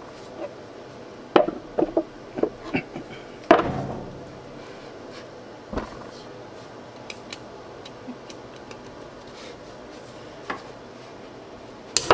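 Scattered knocks and clanks of metal tools and chuck parts being handled. A quick cluster comes in the first few seconds, with the loudest knock, ringing briefly, about three and a half seconds in, then a few single knocks later on.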